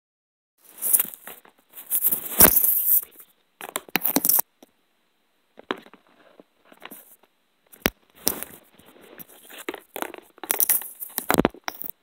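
Irregular bursts of rustling and scraping with a few sharp clicks, as a kitten clambers about in a black plastic microwave dish among loose papers. No meowing.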